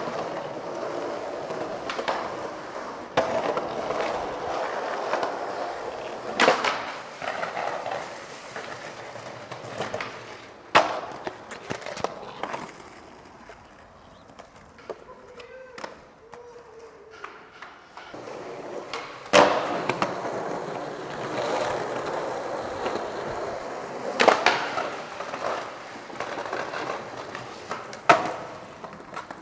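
Skateboard wheels rolling over concrete with a steady rumble, broken by several loud clacks of the board hitting the ground. The rolling drops away for a few seconds in the middle.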